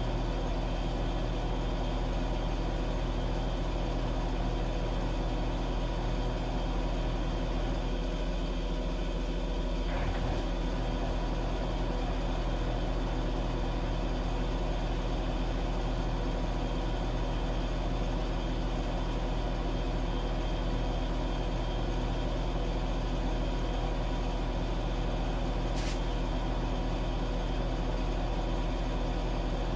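Washing machine running with a steady motor hum. The tone shifts slightly about a third of the way in, and there is a brief faint tick near the end.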